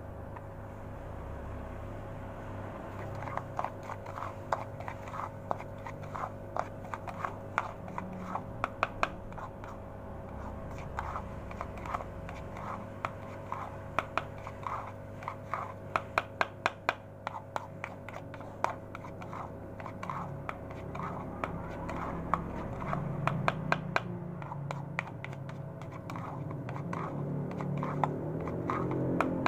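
A metal spoon stirring and scraping catfish feed pellets around a plastic bowl: irregular clicks and scrapes, coming in clusters from a few seconds in, over a faint steady hum.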